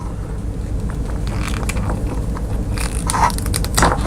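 Wire cutters and an oxygen sensor's wires being handled, giving a scatter of clicks and rustles that grow sharper near the end, over a steady low hum.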